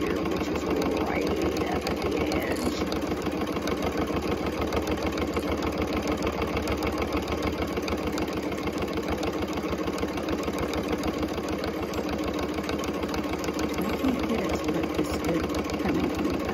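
Electric sewing machine running at a steady speed, its needle stitching rapidly through terry towel and layered fabric.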